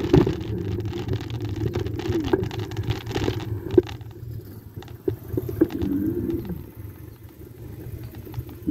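Electric bike in motion: a motor whine that rises and falls in pitch as the speed changes, over a steady low rumble, with scattered knocks and rattles from the bike.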